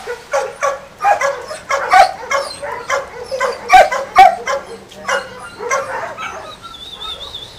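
Dog barking in a rapid run of short, high yaps, about two to three a second, dying away about six seconds in.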